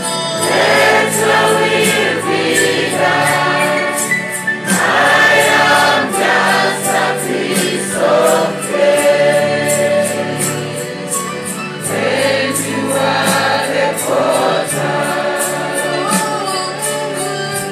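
Gospel worship music: choir voices singing over a band with a steady beat, sung live into a handheld microphone.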